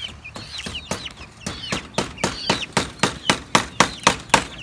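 Five-week-old chickens peeping and clucking in short high calls. From about one and a half seconds in, a rapid run of sharp taps, about four a second, sounds over the calls.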